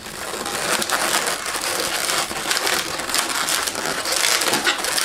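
Latex 260 modelling balloon rubbing and creaking against itself and the hands as bubbles are twisted, a continuous dense rustle.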